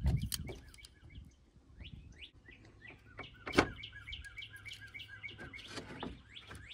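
Small birds chirping repeatedly in the background. A few sharp plastic clicks as the snap clips of a plastic cover panel are pried loose, the loudest about three and a half seconds in.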